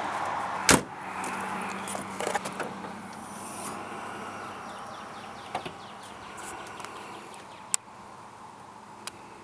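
The door of a 1989 Jaguar XJ6 (XJ40) saloon slams shut about a second in, followed by a few light clicks and knocks.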